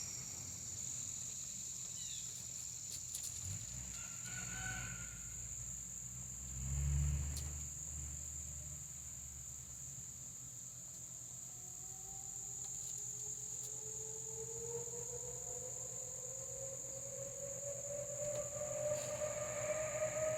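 Outdoor tornado warning siren starting its test, winding up from about halfway through and rising slowly in pitch. Under it is a steady high-pitched insect drone, and a short low rumble comes about seven seconds in.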